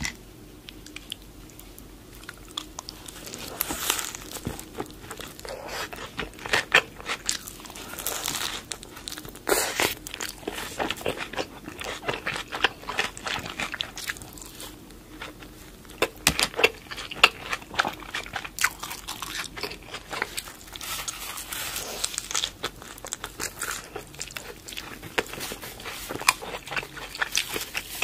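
Close-miked bites into a crisp fried taco shell dipped in nacho cheese, followed by chewing. After a quieter first few seconds come repeated sharp crunches, the loudest about halfway through.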